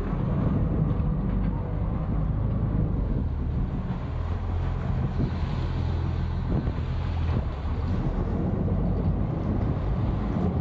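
Sportfishing boat's engine running steadily as a low rumble, with wind buffeting the microphone.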